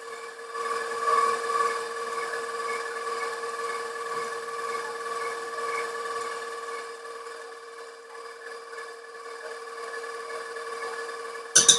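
Electric stand mixer running steadily with its wire whisk, whipping egg whites and sugar from soft toward stiff peaks; the motor gives a constant whine. A loud clatter sounds just before the end.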